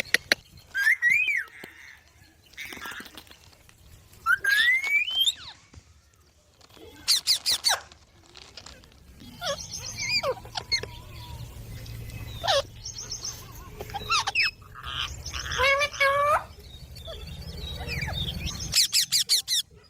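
Baby green parrots calling: separate squeaky chirps and squawks that glide up and down in pitch, with quick runs of rapid repeated chirps about seven seconds in and again near the end.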